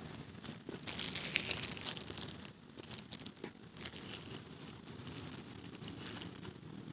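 Faint irregular rustling and crinkling with scattered small clicks, like handling noise.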